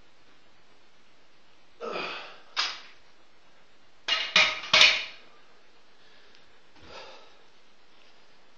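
Loaded barbell being put down after a snatch: a dull thud about two seconds in, then a quick run of sharp, ringing metal clanks about four to five seconds in, the loudest sounds here, as the steel bar is set onto steel jack stands.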